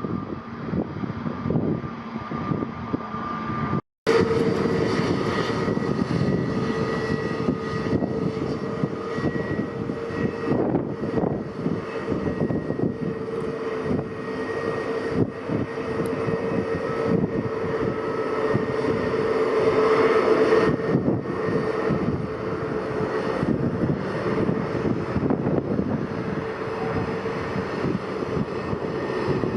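Airliner engines running with a steady whine over a rough rumble, loud throughout. The sound drops out for an instant about four seconds in.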